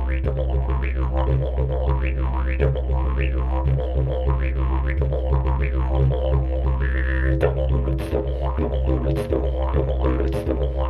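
Didgeridoo played solo: a continuous low drone shaped by rhythmic mouth-and-tongue sweeps that rise and fall several times a second. A higher voiced call sounds over the drone about seven seconds in, and sharp percussive accents punctuate the rhythm near the end.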